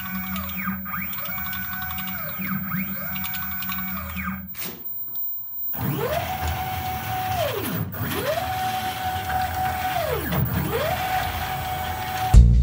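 Belt-driven stepper motors moving a homemade CNC machine's axis back and forth. Each move whines up in pitch as the motors speed up, holds a steady tone, then falls as they slow: three short moves, a brief pause about four and a half seconds in, then three longer moves. Music cuts in at the very end.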